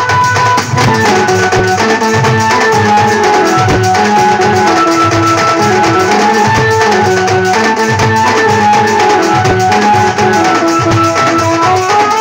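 A Desia-style band party playing: drums, a bass drum and a rack of timbales keep up a loud, busy beat under a melody that steps between held notes.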